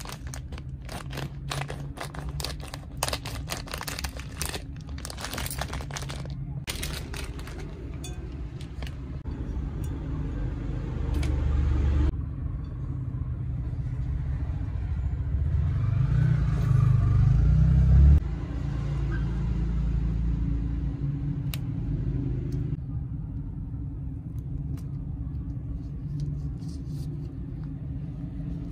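Scissors snipping a plastic sausage packet open, with crinkling of the plastic for the first several seconds, over a steady low rumble.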